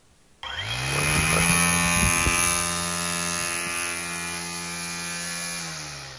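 Greenworks 60V cordless string trimmer's electric motor starting about half a second in. Its whine rises quickly to a steady pitch as the freshly loaded line spins, with a few light knocks in the first two seconds, then it slows and fades near the end. The sound is loud, with the head close to the microphone.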